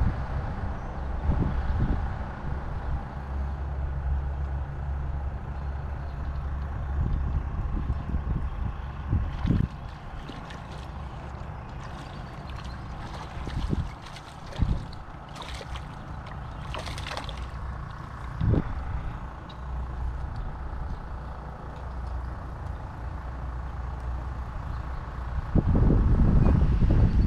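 A hooked largemouth bass splashing at the surface of a pond as it is reeled in, several brief splashes in the middle, over a steady low rumble. The rumble gets louder near the end as the fish is lifted out by hand.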